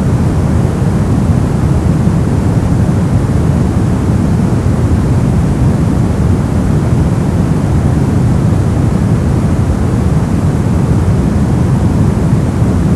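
Steady synthetic pink noise played continuously, an even hiss-like rush with no change in level and most of its weight in the low end.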